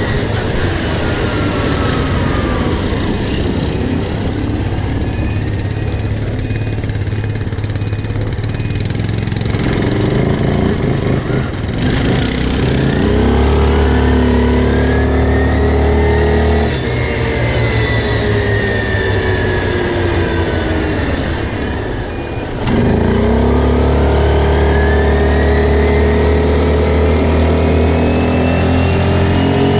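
Quad bike engine running under way, its pitch rising and falling as the throttle is opened and eased off. It drops back twice, briefly about halfway through and again near 22 seconds in, each time pulling up strongly again.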